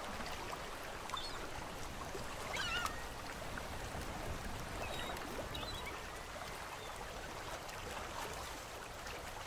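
Steady, faint sound of river water flowing and lapping, as heard moving along on the water. A brief high chirp comes about two and a half seconds in.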